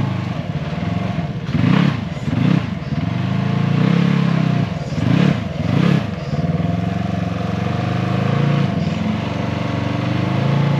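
Off-road side-by-side engine running under load, revved up and back down in quick bursts about two seconds in and again around five to six seconds in.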